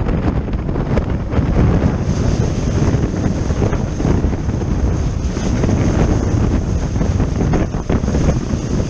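Wind buffeting the microphone over the rush of water past the hulls of a Multi 50 racing trimaran sailing at high speed. A faint steady high whine runs underneath.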